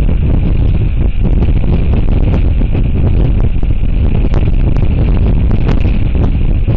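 Strong wind buffeting the outdoor nest camera's microphone: a loud, steady low rumble with scattered crackles.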